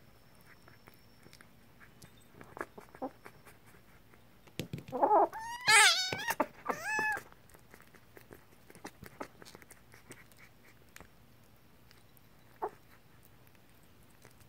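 A kitten meows three times in quick succession about five seconds in, short wavering cries over its food. Around them come faint small clicks of the kittens eating from ceramic bowls.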